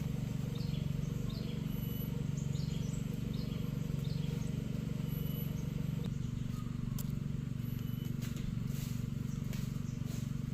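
A bird chirping in a quick series of short, high chirps, one every second or less, mostly in the first few seconds, over a steady low drone with a few faint clicks.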